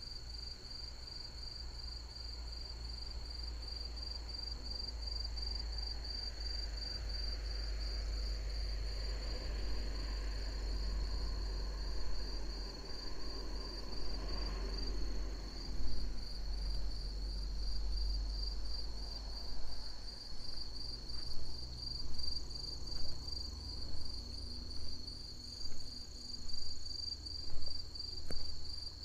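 Crickets chirping in a steady chorus, a high, fast-pulsing trill. A soft rushing noise swells and fades midway, and in the second half footsteps sound on the path about once a second.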